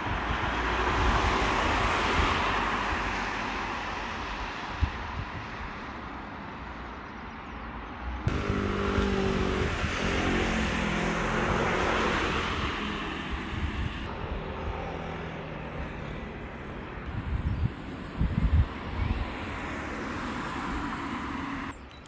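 Road traffic: a car passes about a second or two in, then a second vehicle passes from about eight to fourteen seconds, its engine note falling as it goes by.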